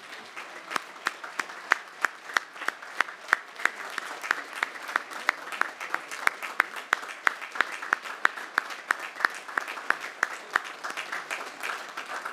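Large crowd applauding, with one loud clapper close by keeping an even beat of about three claps a second until near the end.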